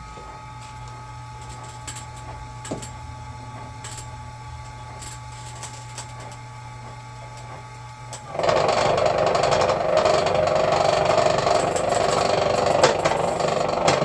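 Vevor electric wire stripping machine: a steady low hum with a few light clicks, then about eight seconds in a much louder, rough mechanical noise starts and keeps going as thick insulated cable is fed through it.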